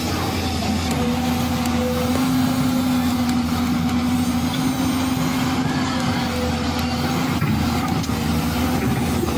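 Steady truck-engine drone, a continuous low hum with a held pitch that does not rise or fall.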